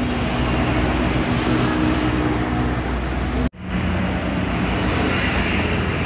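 Road traffic noise from buses on a highway, with a steady low engine hum under the rush of tyres and wind. The sound drops out for an instant about three and a half seconds in, then resumes with a slightly different hum.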